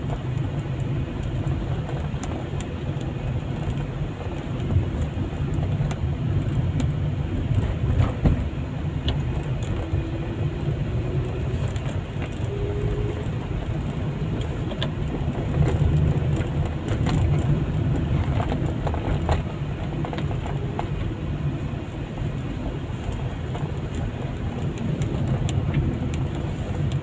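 Steady low rumble of a car driving along a road, heard from inside the cabin: engine and tyre noise, with a few faint short rising whines.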